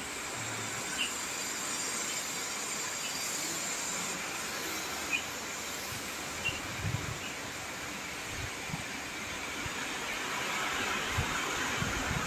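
Steady rain falling, an even hiss with a few sharp drip-like ticks and some low thuds near the middle and end.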